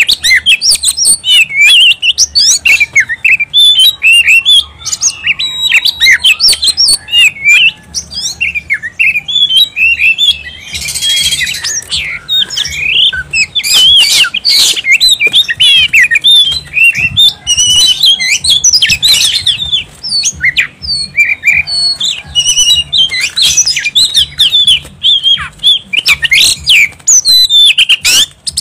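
Oriental magpie-robin (kacer) singing loudly and without a break: a fast run of varied whistles, chirps and slurred glides, with a harsh rasping phrase about eleven seconds in.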